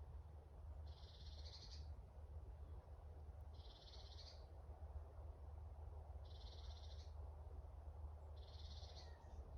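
A small animal's high, buzzing trill, repeated four times at about two-and-a-half-second intervals, each call under a second long, over a faint low steady rumble.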